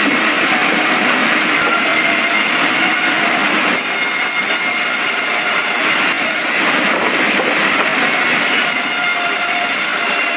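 Band sawmill running and cutting through a log: a loud, steady sawing noise with a thin high whine over it.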